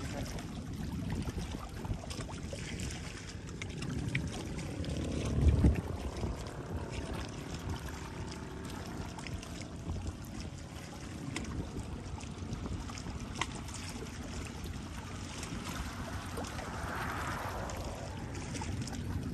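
Water lapping and trickling against a steady low rumble, with one loud thump about five and a half seconds in.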